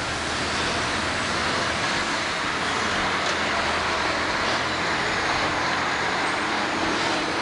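Vehicle driving slowly, a steady rushing noise over a low hum, with no sharp knocks or impacts.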